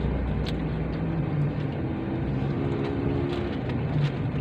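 Steady low rumble of a car interior, with a faint hum through the middle and a sharp small click about half a second in.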